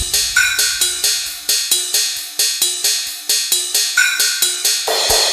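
Music: a percussion-driven track of quick, evenly spaced cymbal and hi-hat hits, about four a second, over a short repeating melodic figure. Low bass thumps come in near the end.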